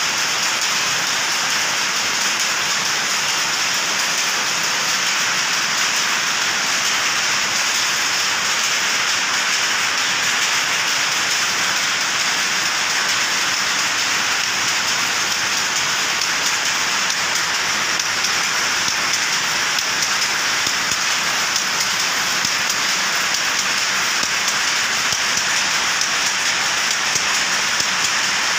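Steady, dense clatter of many shuttle powerlooms running together in a weaving shed, merging into one even, loud din.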